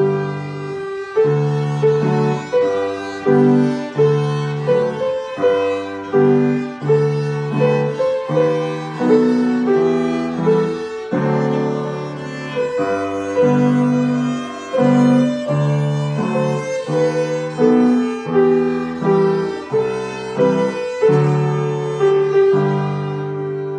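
Violin and grand piano playing a slow piece together, the violin bowed by a young student over piano accompaniment. Near the end the final chord is held and begins to fade.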